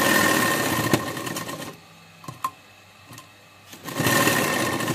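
Sewing machine stitching a shoulder seam: it runs for nearly two seconds, stops, and a couple of short clicks sound in the pause before it starts running again near the end.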